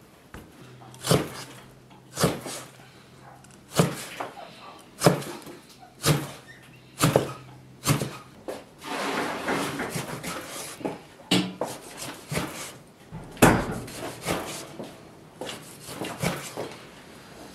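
Cleaver chopping pork belly on a thick round wooden chopping block: a series of sharp knocks about a second apart, with lighter, quicker cutting between them.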